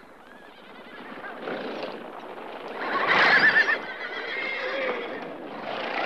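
A herd of horses neighing: several whinnies, the loudest and longest about three seconds in, over the steady noise of the herd.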